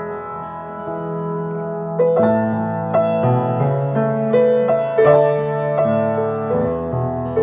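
Slow piano music: held chords with new notes struck about once a second, and a new chord coming in about two seconds in.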